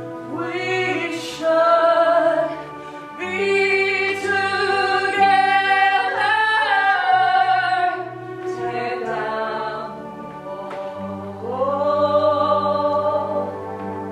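Choir singing slow phrases of long-held notes over low sustained accompaniment tones.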